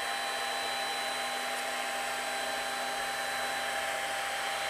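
Large-format 3D printer running: steady fan noise with the even whine of stepper motors holding a constant tone as an axis is driven.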